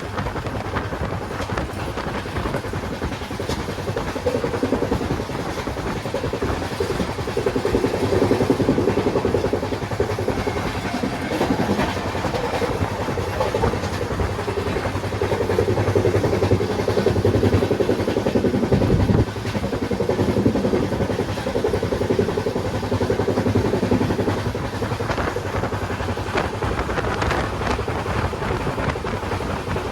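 Indian Railways train running along the track, a steady rumbling noise that swells and eases a little, dipping briefly just after halfway.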